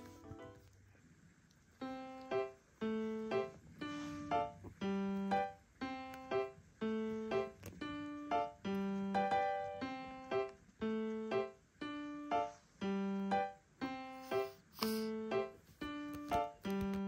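Background music: a light keyboard tune of short piano-like notes in a steady, bouncy rhythm. One piece fades out and, after a second of silence, the next begins about two seconds in.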